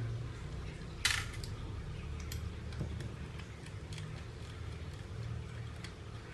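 Small screwdriver turning screws out of a handheld two-way radio's metal chassis: light metallic clicks and ticks, with one sharper click about a second in.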